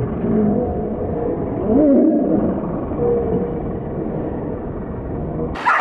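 Muffled, wavering cries with arching pitch, then from about 5.6 s in, sharp high-pitched yelping and whining from excited racing whippets.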